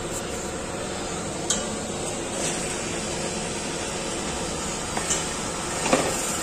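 Steady background noise of a busy market street, with a few sharp clicks and knocks scattered through it; the loudest comes near the end.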